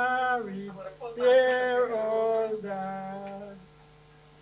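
A voice singing slow, long held notes in three phrases, dying away a little before the end.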